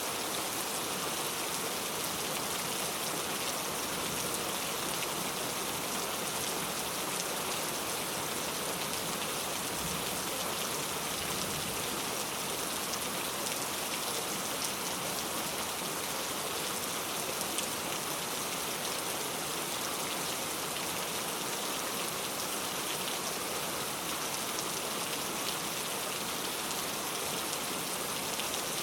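Heavy rain falling and pattering on surfaces, a loud, steady hiss dense with fine drop impacts.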